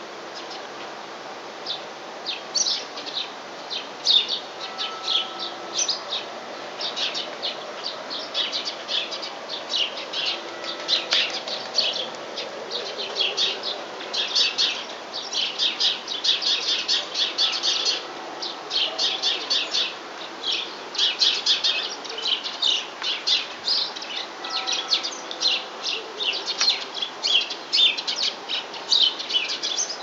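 Birds chirping in a busy, near-continuous stream of short high calls, densest in the middle.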